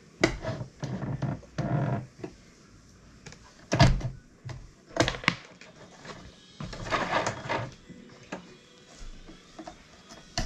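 Irregular clicks, knocks and brief rustles from handling a small electric sewing machine and shifting fabric under it, with the motor stopped. The sharpest knocks come about four and five seconds in.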